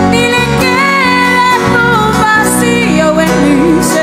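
Live acoustic band music: a high melody line sliding and wavering in pitch over sustained accompaniment, between sung verses.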